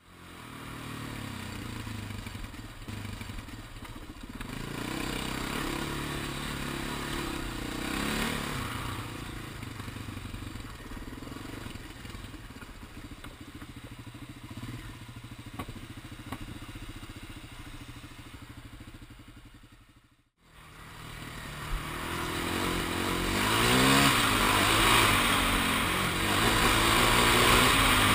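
Sport ATV engine running under the rider, its pitch rising and falling with the throttle as it rides a rough trail. Near the end, after a momentary dropout about twenty seconds in, it comes back louder, revving up and down as the quad accelerates along the dirt track.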